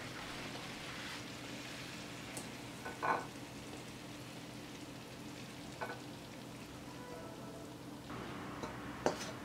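Spatula scraping cooked cauliflower and mushroom out of a wok into a ceramic serving dish: a few short scrapes and soft knocks, the clearest about three seconds in, over a steady faint hiss.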